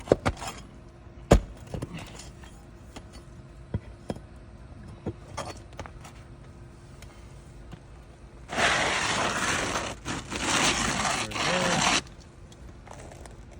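Asphalt roof shingle being lifted and pried up. A couple of sharp knocks come in the first second or so, then about three and a half seconds of loud scraping and tearing in three stretches late on.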